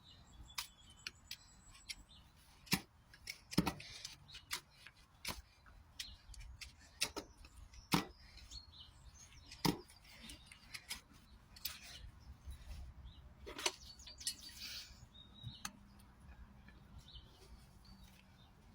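Farrier's hoof-trimming tools cutting the horn of a horse's hoof: irregular sharp snips and clicks, about one a second, a few of them much louder.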